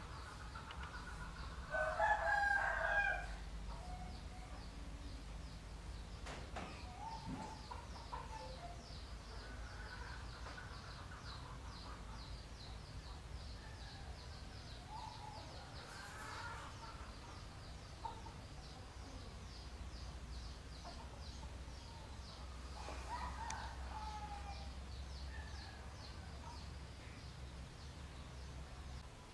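Chickens calling: a rooster crows once about two seconds in, the loudest sound, followed by fainter scattered clucks. A faint, fast, high-pitched ticking runs in the background.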